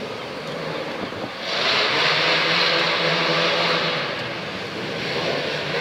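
A car driving past with its engine running at a steady pitch. It gets louder about a second and a half in, with a strong hiss over the engine note, and eases off after about three seconds.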